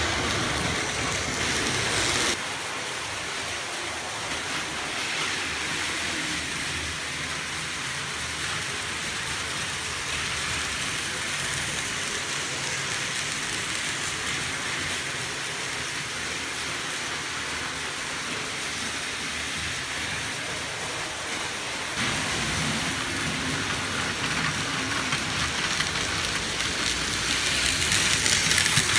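Several battery-powered Plarail toy trains running together on plastic track: a steady whirr and rattle of small motors and plastic wheels over the track joints. It gets louder about two-thirds of the way through and again near the end.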